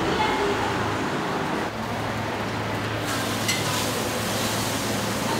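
Steady traffic and street noise with a low hum, with one light click about three and a half seconds in.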